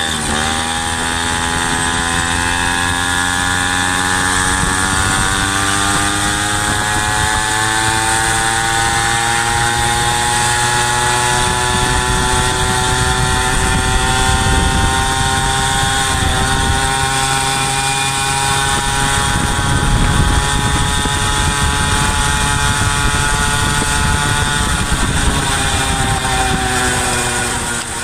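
Peugeot 103 moped's small two-stroke single-cylinder engine running under way. Its note climbs over the first several seconds as the bike gathers speed, then holds steady and eases slightly near the end, over a low rumble of wind and road noise.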